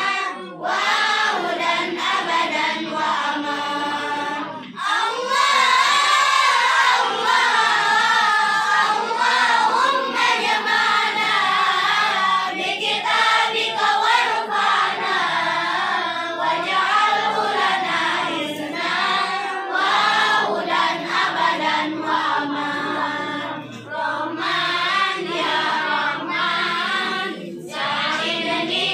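A group of children singing sholawat, Islamic devotional songs, together in unison, with a few brief breaks between phrases.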